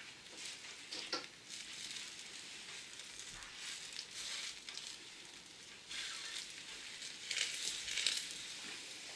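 Bread sandwich frying in oil in a pan on a gas burner, a steady sizzle that grows louder near the end as a fresh sandwich is laid into the pan.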